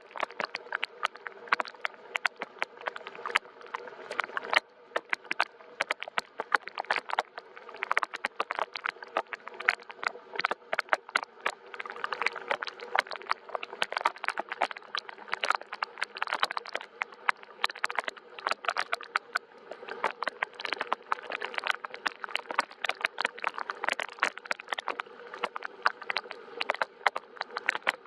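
Gentle rain falling steadily, many separate drops ticking irregularly over a soft continuous hiss.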